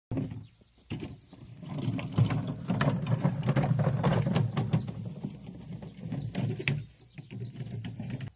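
Homemade chipboard hay press tipped onto its small wheels and rolled over rough, bumpy garden soil, its wheels and box rattling and clattering. The rattling starts abruptly, pauses briefly, and stops shortly before the end.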